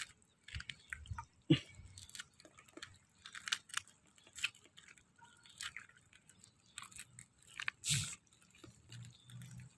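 Green mussel shells clicking and crunching as they are picked by hand off the bank: irregular short clicks and scrapes, the loudest near the end.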